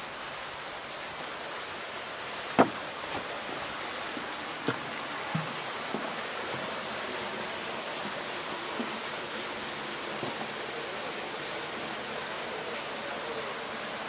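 Steady rush of flowing river water, with a few short sharp knocks in the first half, the loudest about two and a half seconds in.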